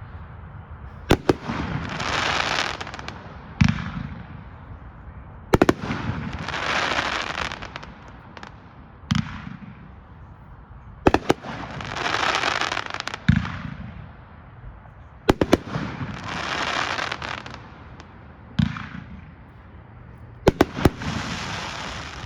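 Consumer aerial fireworks cake (Triple Mayhem) firing a volley of shots. Sharp bangs are each followed by a noisy burst lasting a second or two, and the cycle repeats about every four to five seconds, five times.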